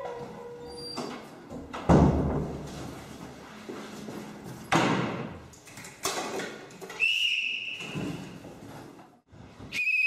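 A door banging shut with a loud thud, followed by further knocks and bumps. Near the end a metal sports whistle gives a blast of about a second with a slight trill.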